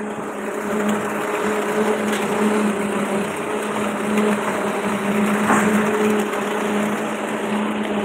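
Engine of a truck-mounted concrete boom pump running at a steady speed, a constant hum with no change.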